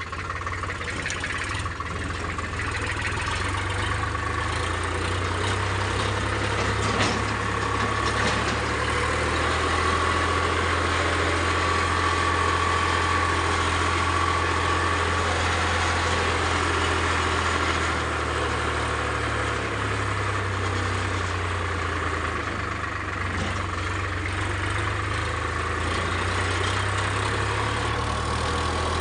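Farm tractor's diesel engine running steadily under way, heard from the driver's seat: a low engine drone with a thin, steady high whine over it.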